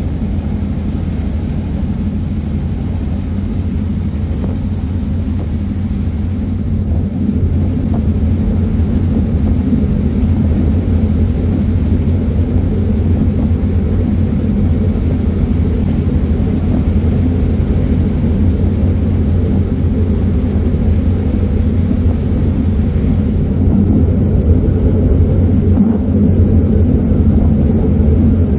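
Passenger ferry's engines droning steadily in a deep, even rumble, heard from the open deck. It grows a little louder about a quarter of the way in.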